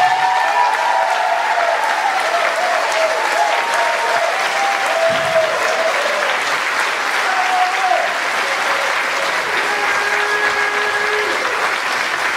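Audience applauding after a stage performance, with cheering voices over the clapping in the first half.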